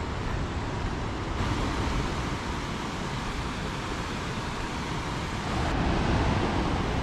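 Steady rush of a river running high and fast after heavy rain, a little louder near the end.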